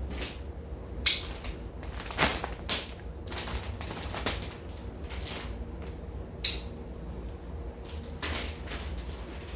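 Hard parts being handled, making about half a dozen sharp, irregular clicks and knocks over a steady low hum.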